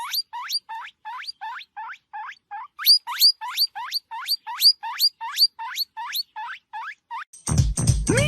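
A small animal squeaking over and over, each squeak a short rising squeal, about three a second in an even rhythm. Near the end the squeaks stop and a louder, lower sound cuts in.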